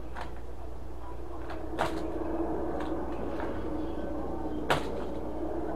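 Sharp plastic clicks and knocks as toy cars and plastic track pieces are handled and set off, three louder than the rest, over a steady hum.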